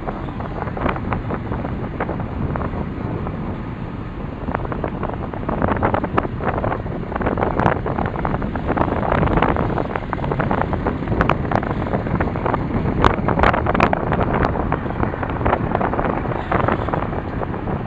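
Wind buffeting the microphone over the low rumble of a car driving slowly along, with scattered clicks. It gets louder about five seconds in.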